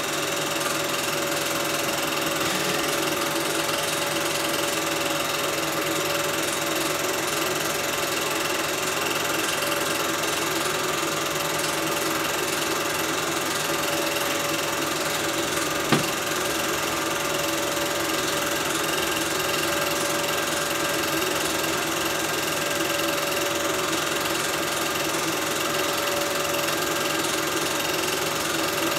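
Film projector running: a steady mechanical whirr and rattle from its motor and film-advance mechanism, with a single sharp click about sixteen seconds in.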